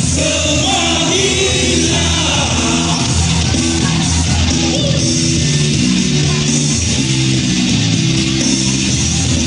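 Live rock and roll band playing loudly, with a steady bass line and cymbals under a singer's voice during the first few seconds.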